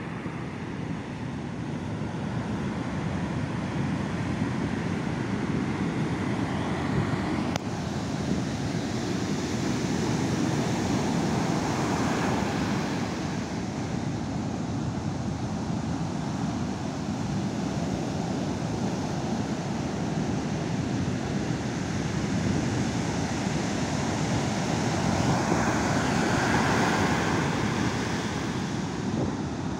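Heavy ocean surf rushing and breaking on a beach, swelling louder twice as bigger waves come in, with wind blowing on the microphone.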